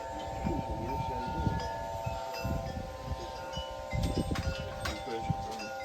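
Wind chimes ringing steadily in gusty storm wind, several tones sounding together with light high pings, while gusts buffet the microphone with a low rumble.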